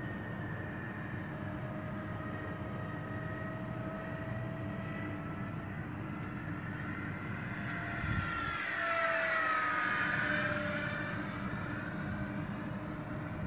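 Electric ducted fans of an RC model Airbus A320 whining in flight. The whine grows louder and shifts in pitch about eight seconds in as the model passes close, then eases off a little.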